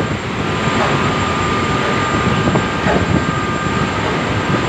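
Steady drone of a remote-controlled crane's hoist machinery running, with a constant high whine over a low rumble and some wind buffeting on the microphone.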